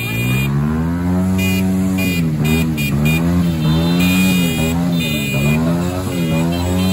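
Many small motorcycles riding together in a procession, their engines revving up and down and overlapping, with a high tone sounding on and off.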